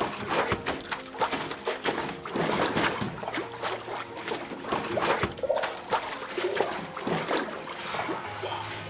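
Water splashing, sloshing and streaming off a large double-screen hanji papermaking mould as it is swept and rocked through a vat of paper pulp, with irregular splashes and drips throughout.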